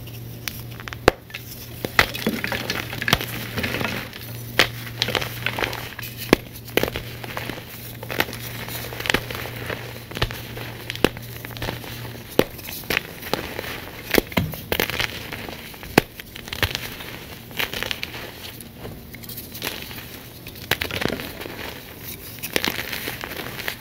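Blocks of dyed gym chalk being broken and crushed by hand: dry crunching and crumbling, broken by sharp snaps at irregular intervals as pieces crack apart.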